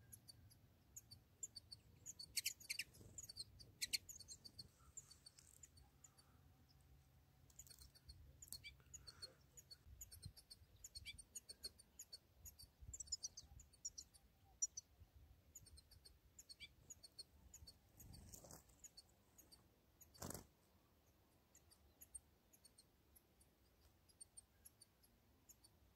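Faint, scattered high chirps and twitters of European goldfinches. A brief burst of noise about twenty seconds in.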